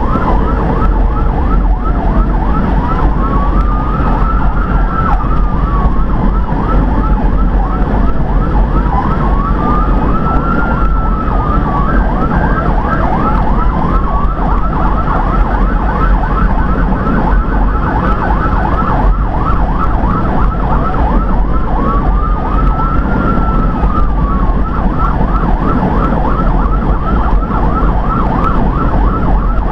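Emergency vehicle's electronic siren heard from inside the cab of the responding vehicle: a slow wail rising and falling every few seconds, with fast yelping sweeps several times a second running over it. Steady engine and road rumble sits underneath.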